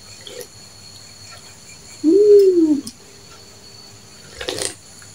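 A person's closed-mouth "mmm" hum, one call about a second long that rises and falls in pitch, while tasting bakso broth from a spoon, followed near the end by a short slurp from the spoon.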